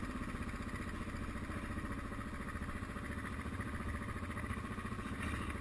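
Suzuki DR650's single-cylinder four-stroke engine running steadily with an even pulse.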